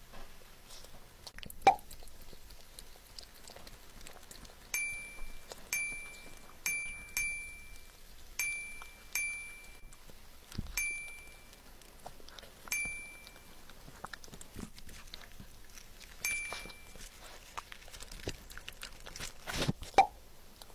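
A glass dessert cup rings with short, clear clinks, about ten of them roughly a second apart, as a small dog licks food out of it. A sharp knock sounds about two seconds in and another near the end.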